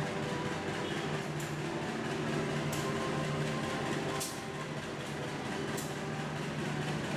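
Train running at the station: a steady mechanical hum with several held low tones, with faint short clicks about every second and a half.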